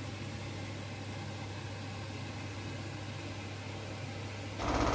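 Steady low electrical hum with a faint hiss, from a running kitchen appliance; it stays even throughout and gets louder near the end.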